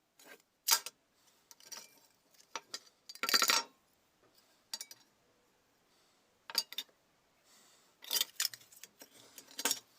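Scattered clicks and clinks of small hard objects being handled and set down, with a short scraping rustle about three seconds in and a cluster of clicks near the end.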